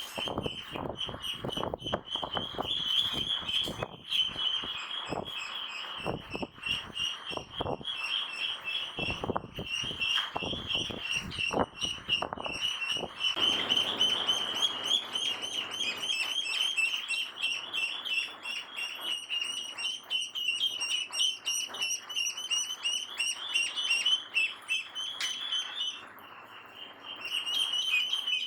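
Many ducklings peeping continuously in a dense chorus of short high chirps, which briefly stops near the end. Irregular knocks sound under the peeping in the first half.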